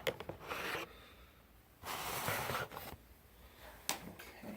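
Rustling and handling noise: a few light clicks at the start, a short burst of rustling about half a second in and a longer one about two seconds in, then another click near the end.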